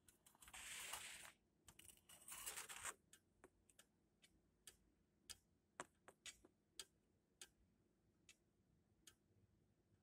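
Faint, irregular sharp taps, a dozen or so, of a small bird pecking and striking at a car's side window glass, after two brief rustling bursts near the start.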